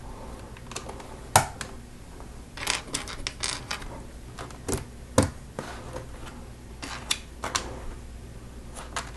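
Small plastic Lego pieces clicking and tapping against each other as they are picked through and handled, with irregular sharp clicks and two louder knocks, about a second and a half in and about five seconds in.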